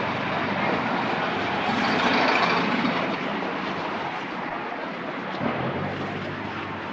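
Period city street ambience of the 1920s: a steady wash of motor traffic, with the low hum of vehicle engines under a dense rumble of street noise, growing a little louder about two seconds in.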